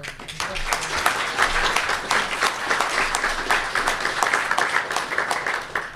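Audience applauding: dense clapping that starts abruptly and stops near the end.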